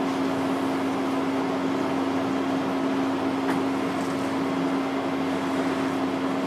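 Steady mechanical hum of room equipment, a constant drone with one steady low tone, with a faint click about three and a half seconds in.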